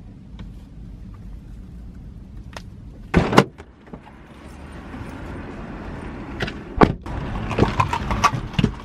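A drive-through order being taken in through the driver's window of a car with its engine running, over a steady low hum. A couple of sharp knocks come about three and seven seconds in, and paper bag rustling and handling noise grows toward the end as the iced coffee and the Dunkin' paper bag come into the car.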